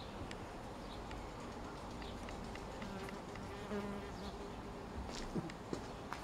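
A fly buzzing close to the microphone, its wavering drone starting about three seconds in.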